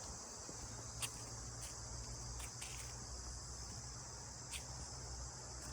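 Faint, steady chirring of crickets in an insect chorus, with a few soft clicks here and there.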